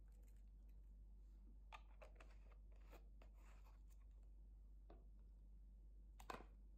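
Near silence: a faint steady low hum with a few soft clicks and taps of small plastic jars of slime add-ins being handled, the sharpest about six seconds in.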